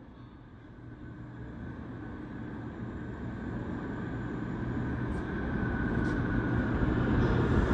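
New York City subway train approaching through the tunnel, its rumble growing steadily louder.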